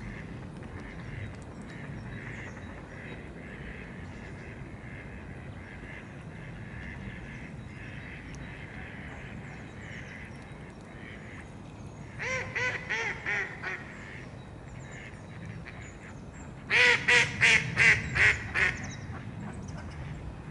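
Mallard hen quacking: two runs of about six quacks each, one a little past halfway and a louder one about four seconds later, over a steady low background.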